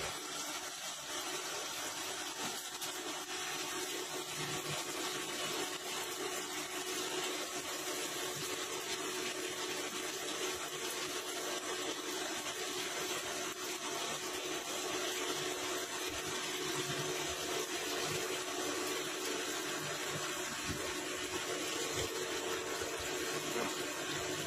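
Nakamura-Tome TW-20 CNC lathe turning bar stock under flood coolant: a steady splashing of coolant over the spinning workpiece and tool, with the machine running underneath and a faint steady whine.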